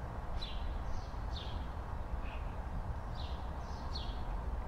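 Small birds chirping outdoors, short falling chirps about one or two a second, over a steady low rumble.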